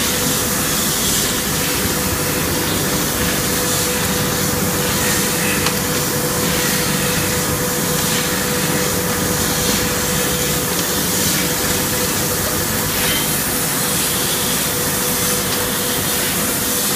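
Motorcycle disc brake pad grinding machine running steadily: a continuous grinding hiss with a steady hum underneath.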